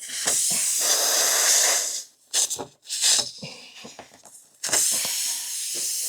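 Air hissing out of a puncture hole in a tubeless tyre, in three bursts with short gaps, as a plug-kit rasp tool is worked into the hole.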